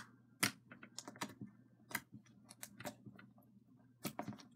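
Fluffy slime being poked and pressed with the fingertips, making irregular sharp little pops and clicks, a few each second.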